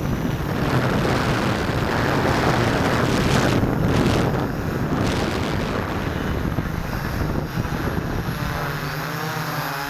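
S650 hexacopter's motors and propellers buzzing, heard from a camera mounted on the craft, mixed with a heavy rush of air over the microphone. About nine seconds in the rush thins and the motors' steady hum with its overtones comes through clearly.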